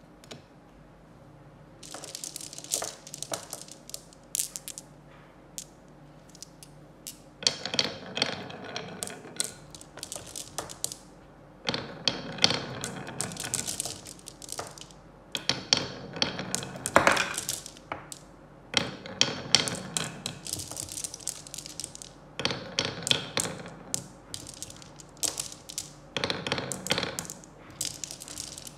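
Marbles rolling along a wavy wooden marble-run track and clicking against the wood and each other, in repeated clattering bursts of one to three seconds with short lulls between.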